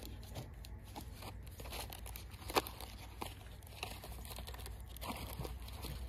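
Paper wrapping rustling, crinkling and tearing as an axe head is unwrapped by hand, with scattered crackles and one sharp crackle about two and a half seconds in.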